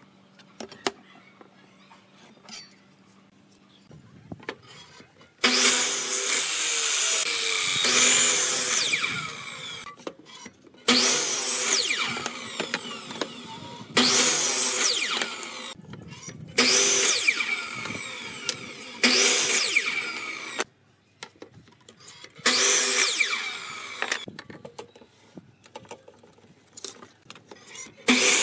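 Electric miter saw cutting pine boards, about six cuts in a row: each a loud burst of a few seconds as the spinning blade runs through the wood, with short pauses between. The first few seconds hold only faint taps of hand work.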